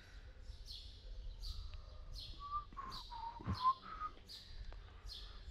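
A small bird chirping over and over, one quick high falling chirp about every two-thirds of a second. A few lower, wavering whistled notes come in the middle.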